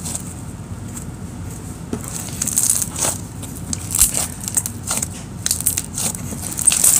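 Jelly cube slime, glue slime packed with cut magic-eraser sponge cubes, being squished and worked by hand, giving off irregular wet crackles and little pops.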